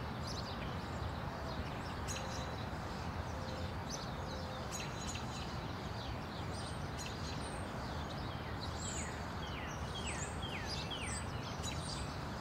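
Steady outdoor background noise with birds chirping: scattered short, falling chirps that come thicker near the end.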